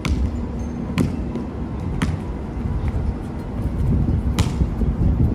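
Sharp knocks, roughly one a second, over a steady low rumble.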